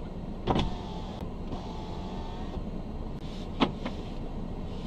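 Steady hum of a car's engine and cabin, heard from inside a car that is stopped or barely moving. Two sharp clicks cut through it, about half a second in and again about three and a half seconds in, and a faint thin whine comes and goes between them.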